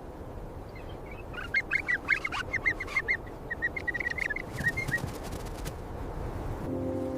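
Birds calling: a rapid run of short, chirping calls over a low rumbling background, for a few seconds from about a second in. Near the end a steady low hum with several tones sets in.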